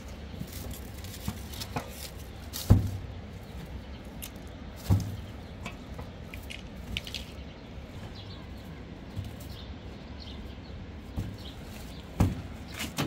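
Household goods being shifted in the metal bed of a pickup truck: a few sharp knocks, the loudest about three seconds in, with light clatter and rustling between.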